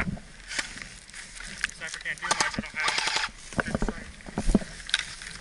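A sharp click at the start, then rustling and scattered clicks of gear being handled, with muffled voices shouting in the background.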